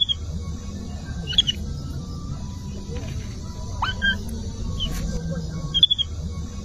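Young monkeys calling: short, high squeaky chirps every second or so, with one longer call rising in pitch about four seconds in.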